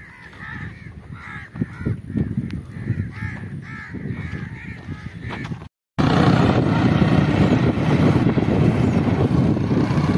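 A bird calling over and over in a quick series of short harsh calls. After a sudden cut, a louder motorcycle engine and road noise takes over while riding.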